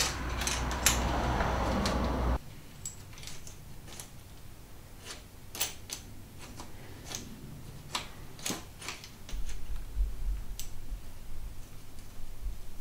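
Scattered light metallic clicks and ticks as a bicycle handlebar bar-extender bracket and its small bolts are handled and adjusted. A rustling hiss fills the first couple of seconds and cuts off abruptly.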